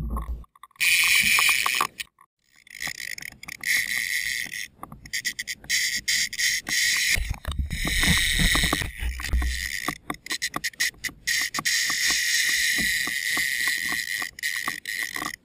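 Choppy water splashing and lapping against a kayak's hull close to the microphone, a steady hissing wash with irregular small slaps. The sound cuts out completely twice in the first few seconds.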